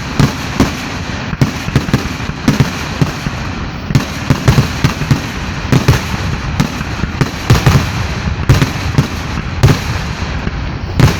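Fireworks going off in a rapid barrage: sharp bangs several times a second over continuous crackling.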